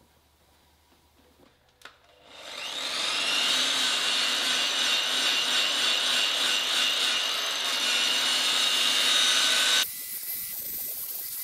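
Electric polisher with a foam pad spinning up with a rising whine about two seconds in, then running steadily against the paint while buffing freshly sanded clear coat to gloss. It cuts off abruptly near the end, leaving a quieter, rough noise.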